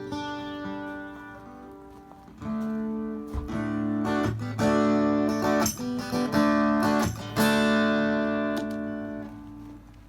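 Acoustic guitar strumming chords. A chord rings and fades for about two seconds, then a run of strummed chords follows and dies away near the end.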